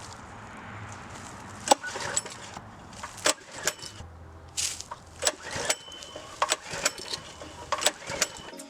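Scattered metallic clicks and knocks, with a short rasp about four and a half seconds in, as the go-kart's 212cc Predator engine is worked by hand without starting. No engine runs.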